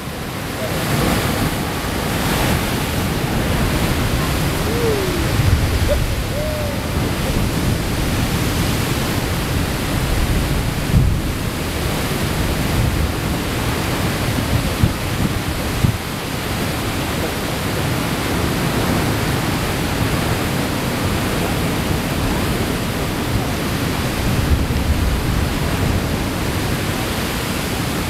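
Heavy ocean surf breaking against rocks and a harbour sea wall, with seawater pouring back off the wall and over the rocks in a continuous rush. A few sharper crashes stand out as waves strike.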